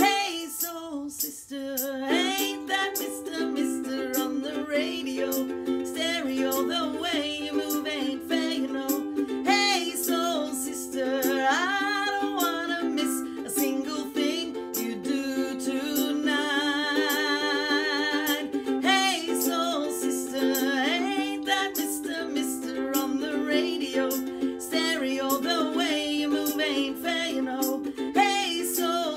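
Ukulele strummed in a steady rhythm, with a woman's voice singing along over it, including a long held note with vibrato a little past halfway.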